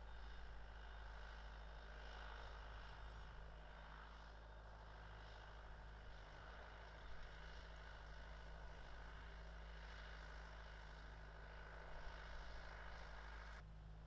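Faint, steady outdoor background noise: a low hum under a soft even hiss, which cuts off abruptly near the end. No clear bird calls.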